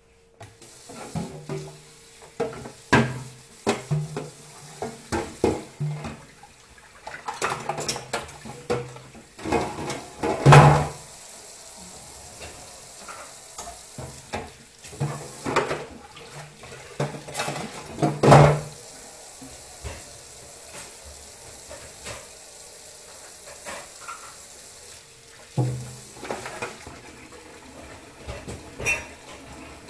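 Dishes being washed at a kitchen sink: tap water running, with irregular clattering of pots, bowls and utensils. Two loud clanks stand out, about ten and eighteen seconds in.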